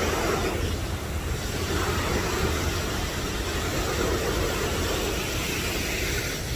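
Large waterfall close up: a steady rushing roar of falling water, heavy in the low end.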